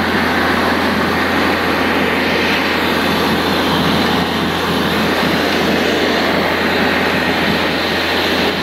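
Borewell drilling rig running steadily while water and spray gush out of the newly struck borehole in a loud, continuous rush, over a steady low engine hum.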